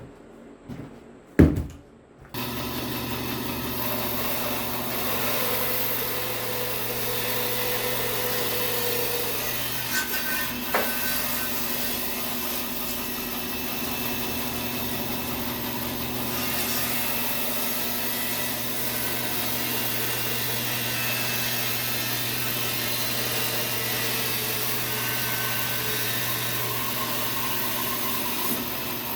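Bandsaw starting up about two seconds in, just after a sharp click, then running steadily with a constant hum while it saws through a log on a sled.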